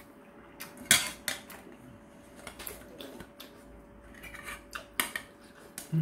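Metal chopsticks clicking and scraping against a stainless steel bowl of noodles: a handful of sharp clinks, the loudest about a second in and two more close together around five seconds in.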